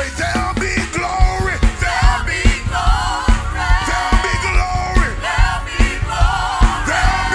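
Live gospel praise and worship music: a praise team of lead and backing singers over a band with a fast, steady drum beat.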